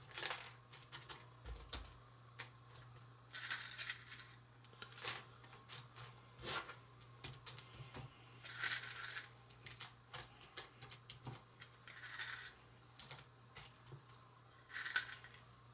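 Broken tortilla-chip pieces dropped into a small metal baking pan and pressed down by hand: light clicks and a few short, dry crackles of the crisp chips. A faint, steady low hum runs underneath.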